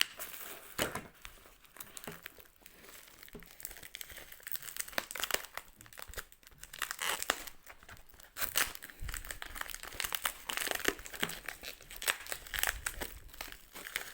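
Plastic packaging crinkling and tearing in irregular crackling bursts as a comic mailer is unwrapped by hand.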